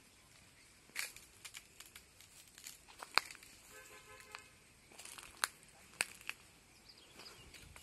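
Footsteps crunching irregularly on dry fallen leaves and soil, sharp crackles about a second apart. A brief faint pitched call sounds about four seconds in.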